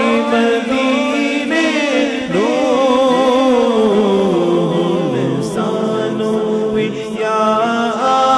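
A man singing a Punjabi naat without instruments into a microphone, holding long wavering, ornamented notes, with heavy echo on the sound system.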